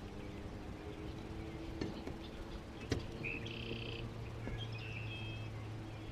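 Quiet lakeside ambience with a steady low hum, two short high wildlife calls about three and a half and five seconds in, and a couple of light knocks from handling in the boat about two and three seconds in.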